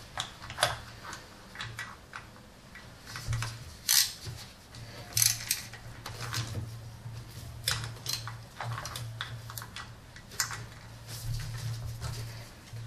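Irregular metal clicks and clinks of a hand wrench on the thermostat housing bolts of a Toyota 3.0 L V6 as they are slowly snugged up by hand, with two sharper clinks about four and five seconds in, over a faint steady low hum.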